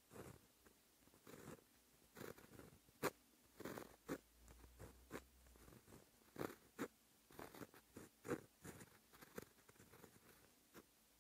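Quiet, close-up scratching of a white-ink pen tip on black paper as Japanese characters are written: a string of short separate strokes with small pauses between them, one sharper tick about three seconds in.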